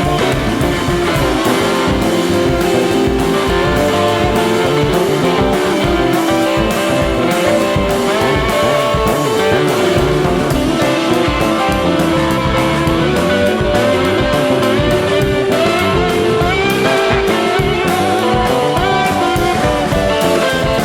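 Background rock music with guitars and a steady beat.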